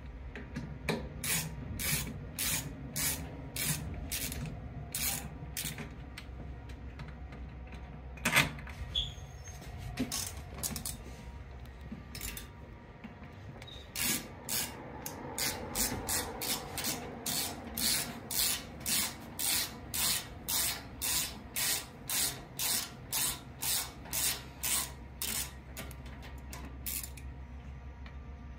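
A 10 mm ratcheting wrench backing out the long screws of a metal electrical box cover: short rasping ratchet strokes about twice a second, pausing for a few seconds in the middle, with one sharp click about eight seconds in.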